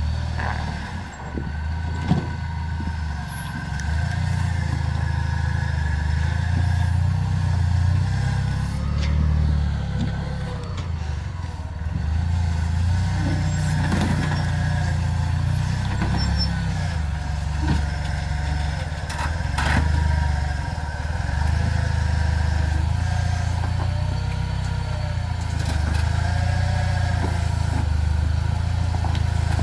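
Rock-crawling Jeep Wrangler's engine running steadily at low revs as it crawls down over boulders, with a few sharp knocks scattered through.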